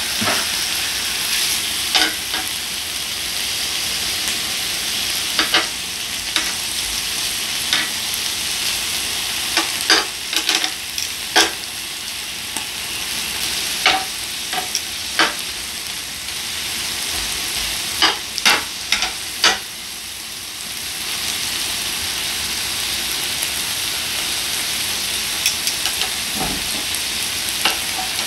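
Beef intestines and heart sizzling steadily on a hot griddle, with sharp clicks of tongs against the meat and griddle plate as the pieces are turned, in clusters a few times.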